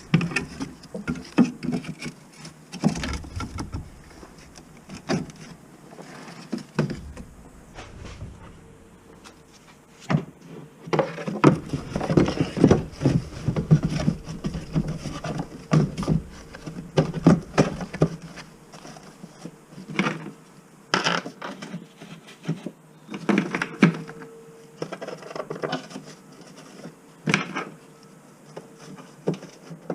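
Irregular clicks, knocks and clinks of hand tools and parts being handled during mechanical work. They are busiest in the middle stretch and again a little later, over a faint steady hum.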